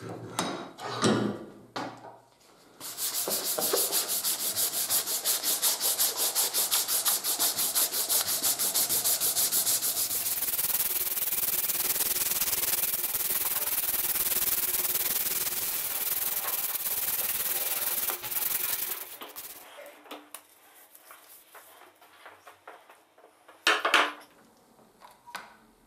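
Oak hammer handle being hand-sanded with a strip of abrasive cloth pulled back and forth around it. The sanding starts about three seconds in with rapid, even back-and-forth strokes, runs on smoother, and stops about five seconds before a single loud knock near the end. A few knocks come just before the sanding starts.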